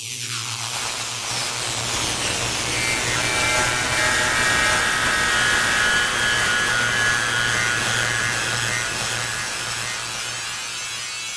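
Ring-modulated modular synthesizer noise drone. A harsh, rasping hiss spreads down from high to low in the first second and stays dense over a steady low hum. A brighter ringing band in the upper middle swells from about 3 s and fades near 9 s, where the sound is loudest in the middle.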